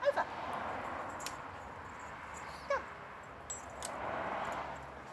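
Parson Russell terrier giving two short whines, one at the very start and one about two and a half seconds in, with a few faint clicks between them.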